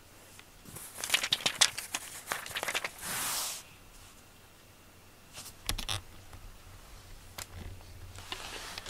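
Crinkling and rustling of a cat teaser toy's plastic strips and ribbons as it is handled beside a lying cat, with a short hissing burst about three seconds in. A few knocks with low thuds come around six seconds.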